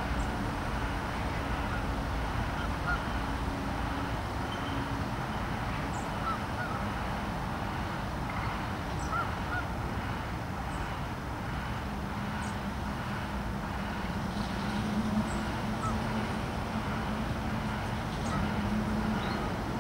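Geese honking now and then over a steady low engine drone from distant machinery, which drops in pitch about twelve seconds in.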